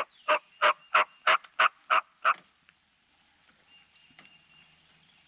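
Turkey yelping: a run of about eight loud, evenly spaced yelps, about three a second, that stops after a little over two seconds.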